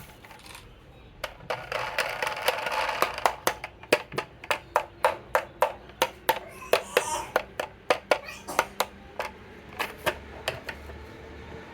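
Marbles rolling down a wooden HABA marble run slope: a rolling rattle, then a long run of sharp clicks and clacks, about three a second, as the marbles drop from track to track. The clicks thin out near the end.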